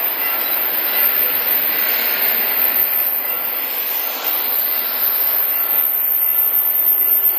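Steady rushing noise of an approaching Korail freight train heard from the lineside, with a few faint high steady tones over the first two seconds or so.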